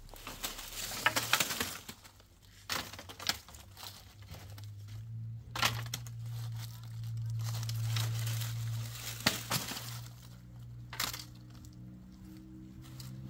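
Dry twigs and branches rustling, crackling and snapping as they are gathered and handled, with scattered sharp cracks. A low steady hum runs underneath, growing louder in the middle.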